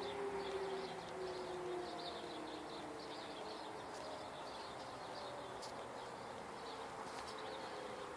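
Outdoor tornado warning sirens from a test, their tones slowly falling in pitch and fading over the first few seconds, leaving a faint lingering tone. Faint high chirps are scattered throughout.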